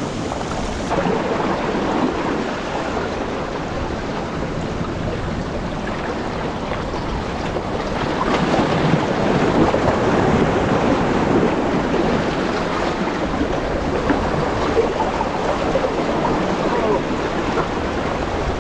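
Sea washing against shoreline rocks, mixed with wind on the microphone: a steady rushing noise that grows a little louder about eight seconds in.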